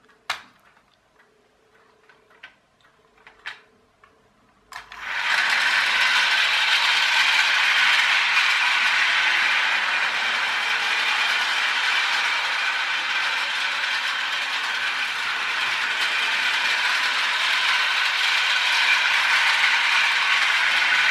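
Battery-powered toy train's small electric motor and gears running with a loud, steady whirr as it goes round its plastic track, starting suddenly about five seconds in. Before that, a few faint clicks.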